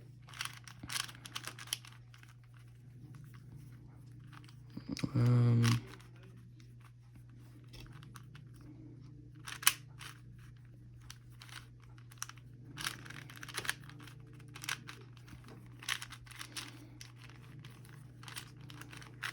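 A plastic 4x4 Rubik's cube being turned by hand while solving a face: irregular clicks and clacks as the layers turn, over a steady low hum. A brief voiced sound about five seconds in.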